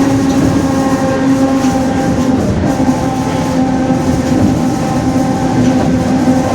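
Rear differential of a Mercedes-Benz OF-1721 city bus howling very loud as the bus drives: a steady drone that holds its pitch, with higher overtones over a deep road and driveline rumble.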